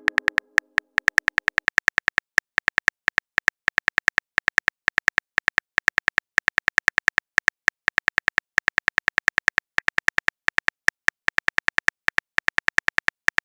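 Simulated phone-keyboard typing: a fast, uneven stream of short, crisp key clicks, several a second, as a message is typed out letter by letter.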